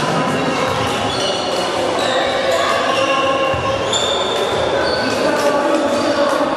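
Floorball play on a sports-hall court: many short, high-pitched squeaks of players' shoes on the court floor, with clacks of sticks and the plastic ball, echoing in the large hall.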